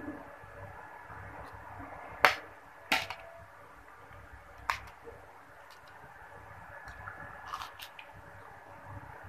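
A metal spoon clinking against a ceramic plate: three sharp clinks about two, three and nearly five seconds in, then a few faint clicks near the end, over a faint steady hum.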